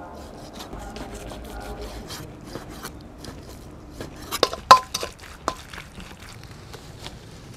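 Kitchen prep sounds: a knife slicing raw beef on a wooden cutting board with light taps. About halfway through come a few sharp metal clanks, one ringing briefly, as the beef is stirred in a metal pan.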